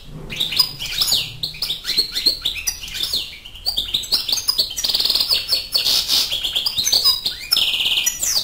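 European goldfinch singing a fast, continuous run of twittering chirps and trills, closing with a harsh buzzy trill near the end. The song starts and cuts off suddenly.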